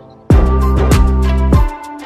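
Background music with drum hits and a deep bass line; it drops out briefly and comes back in with a drum hit about a third of a second in.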